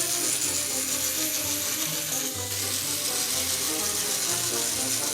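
Clockwork spring motor of a plastic wind-up toy boat running down: a steady rapid whirring, ratcheting rattle of small gears, over background music.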